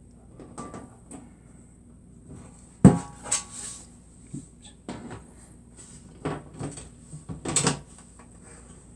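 PC case side panels being handled and fitted back on: a sharp knock about three seconds in, then several smaller knocks and clatters in the second half.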